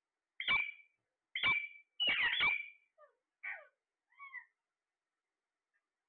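Parakeet calls: three loud, sharp calls in quick succession, the third a rapid cluster, then three softer, shorter ones, over about four seconds.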